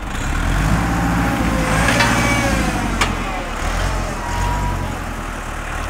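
Tractor engine running, growing louder right at the start and easing off again near the end, with one sharp metallic clank from the hitch linkage about three seconds in.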